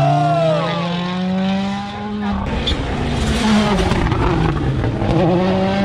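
World Rally Cars' turbocharged four-cylinder engines: one car accelerates away up through its gears with a rising engine note, then a red Citroën C3 WRC comes through the hairpin and accelerates out, its engine note climbing again near the end.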